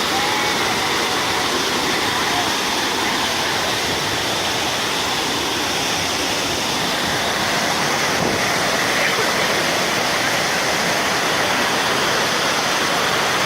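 Waterfall rushing, a steady, loud, even roar of falling water that does not change.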